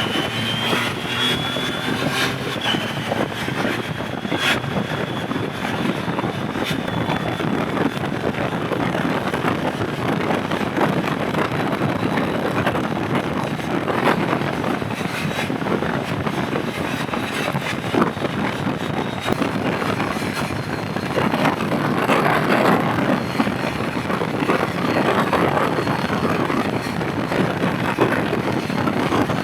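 Motorcycle on the move: the engine running under a steady rush of wind and road noise, a little louder about three-quarters of the way through.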